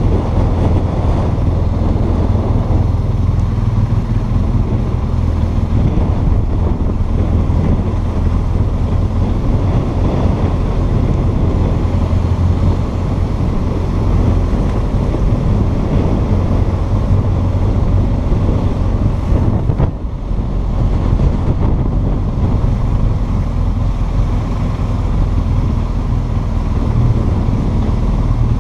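Motorcycle engine running steadily at low revs while riding, with wind noise on the microphone; the sound briefly dips about two-thirds of the way through.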